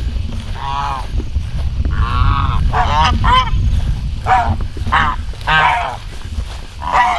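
Domestic geese honking: a run of about nine short calls, some in quick pairs, over a steady low rumble.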